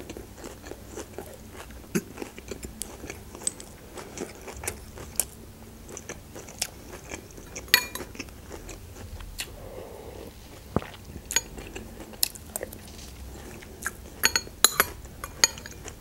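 Close-up eating sounds: chewing and mouth noises, with short sharp clicks of a metal spoon against a ceramic soup bowl, several in quick succession near the end.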